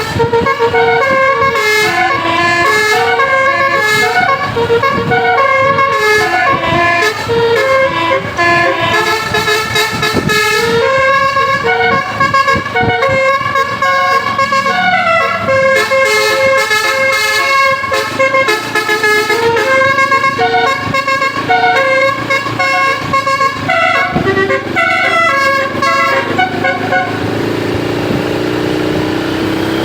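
Bus's Basuri 'telolet' multi-tone horn playing a tune in quick stepped notes. The tune stops about three seconds before the end, and a single rising tone takes over.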